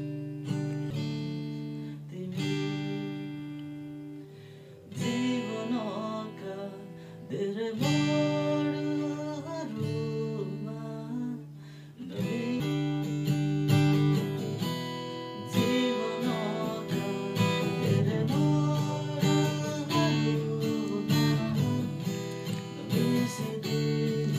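Acoustic guitar strumming chords, with a voice singing along at times.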